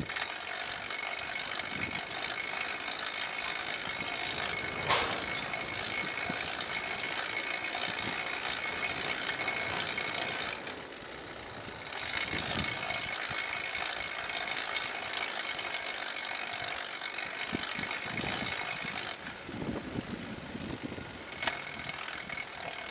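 Bicycle freewheel ticking rapidly while coasting, pausing twice for a second or two. A single sharp knock comes about five seconds in.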